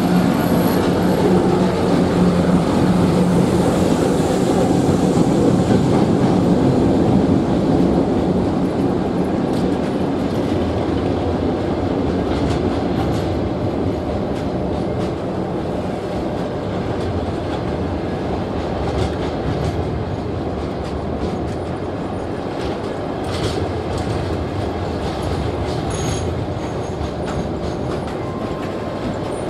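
A passenger train being brought in by a ChME3 diesel shunting locomotive, its wheels clicking over the rail joints under a steady rolling rumble that slowly grows quieter.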